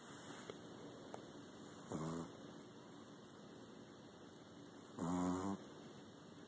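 Snoring: two short pitched snores about three seconds apart, the second slightly longer and louder, with quiet breathing between them.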